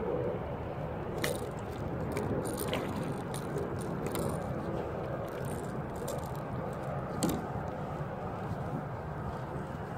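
Scattered clicks and rattles of fishing gear being handled, as a lip-grip tool is clamped on a fish over a landing net, with one sharper click about seven seconds in. Steady wind and water noise runs underneath.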